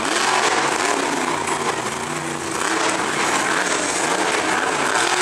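Madusa monster truck's supercharged V8 engine revving up and down repeatedly as the truck manoeuvres, its pitch rising and falling several times.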